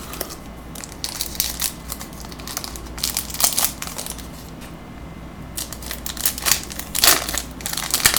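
Wrapper of a Bowman Mega Box trading-card pack crinkling and tearing as it is opened by hand, in irregular crackly bursts with a quieter spell about halfway through.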